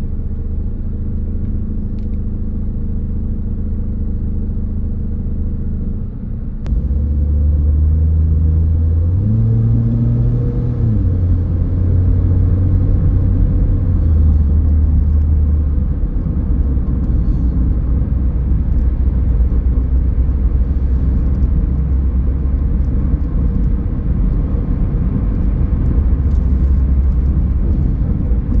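Car engine idling with a low hum, then pulling away about six seconds in. Its note climbs and drops back at a gear change around eleven seconds, then settles into a steady low drone of engine and road noise while cruising.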